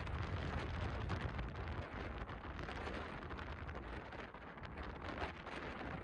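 Wind buffeting the microphone: a gusty low rumble over a steady hiss, heaviest in the first two seconds or so.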